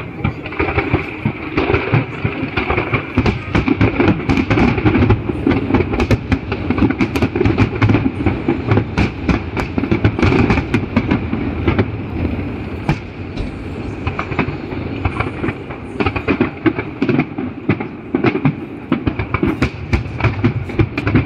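Fireworks in a dense, continuous barrage: rapid bangs and crackling run together without pause, starting suddenly.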